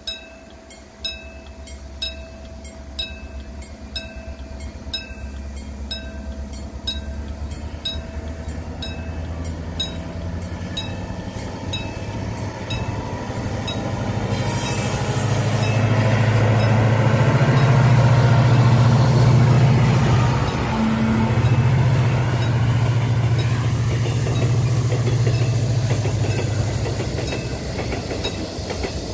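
Level crossing warning bell dinging about once a second as a diesel locomotive approaches, its deep engine rumble swelling to a peak about 18 seconds in as it passes. A string of loaded oil tank cars follows, wheels rolling over the rail joints.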